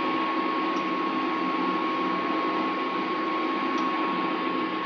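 Induction cooktop heating a pan: the steady whirr of its cooling fan with a constant high whine and a low hum.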